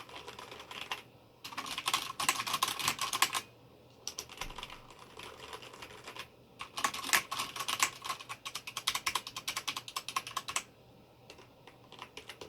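Rapid typing on a HyperX Alloy Elite RGB mechanical keyboard with Cherry MX Brown switches, compared in turn with a membrane keyboard: two louder runs of key clatter, with softer typing between them and near the end. The mechanical keyboard is noticeably noisier.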